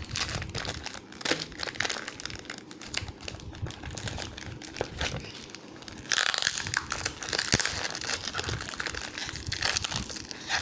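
Crinkling and crackling of a black plastic bag being squeezed and pulled by hand as it is worked open. The crackle gets louder and denser from about six seconds in.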